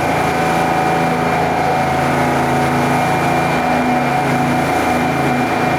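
Motorboat engine running steadily, a constant drone with steady tones that does not rise or fall.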